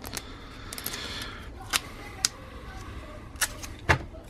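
Duct tape pulled off its roll with a short rasping rip about a second in, followed by a few sharp clicks and knocks of handling, the loudest a knock near the end as the tape roll is set down on the workbench.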